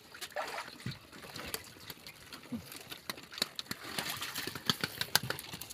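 Irregular sharp clicks and taps as live spiny lobsters are handled on a plastic mesh basket, busier in the second half.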